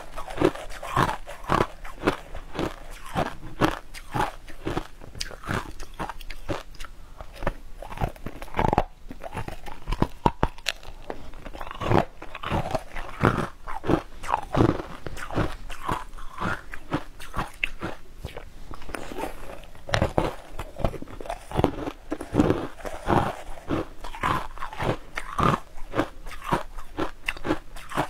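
Crunching and chewing mouthfuls of purple-coloured crushed ice, a rapid, uneven run of sharp icy crunches.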